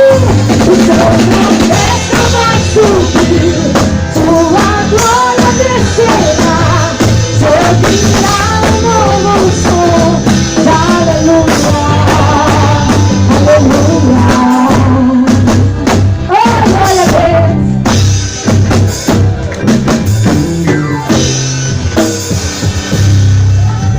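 Live gospel worship band playing loud amplified music: a drum kit keeping the beat under a sung melody.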